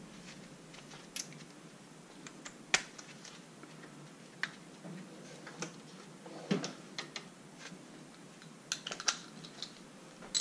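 Metal sockets and hand tools clinking and tapping as they are handled in a tool chest, about a dozen separate light clicks at uneven intervals, the loudest a little under three seconds in.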